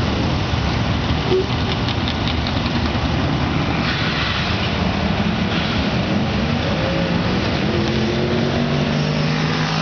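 1997 Ford Mustang Cobra's 4.6-litre DOHC V8 launching at the drag strip and accelerating hard down the track. The engine note climbs steadily in pitch through the second half.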